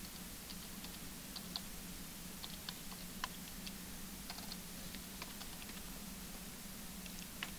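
Faint, irregular clicks of keys being typed as names are entered for a records check, over a steady low hum.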